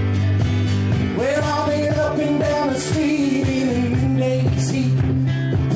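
A man singing one long held note that slowly falls in pitch, over guitar accompaniment in a live blues-country song. The voice comes in about a second in.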